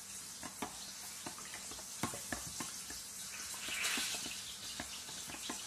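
A spoon stirs a liquid mix in a glass measuring cup, clinking irregularly against the glass, over the steady sizzle of a frying pan. A louder hissing swell comes about four seconds in.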